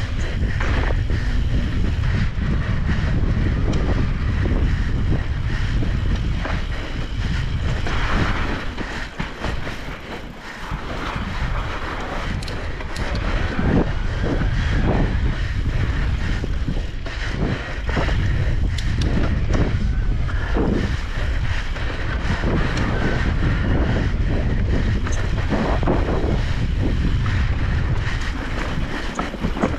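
Wind buffeting the microphone while riding an e-bike, with scattered knocks and rattles from the bike over bumps. It eases briefly about a third of the way in.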